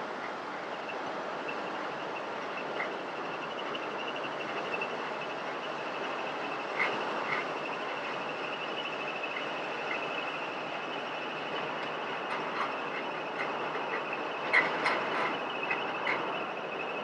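Road noise heard from inside a moving vehicle: a steady rush of tyres on pavement with a high wavering whine over it. Short rattles and clicks come now and then, bunched about halfway and again near the end.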